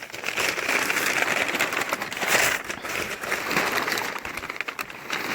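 Plastic and paper packaging rustling and crinkling as items are handled and pulled out of a box, with a steady run of quick crackles.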